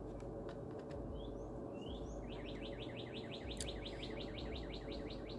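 Wild bird singing: a few short rising chirps, then from about two seconds in a fast trill of repeated notes, about eight a second, over steady low background noise.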